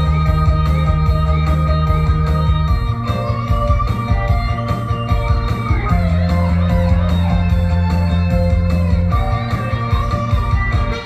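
Upbeat rock-style band music with electric guitar over bass and a steady drum beat, playing as an instrumental intro.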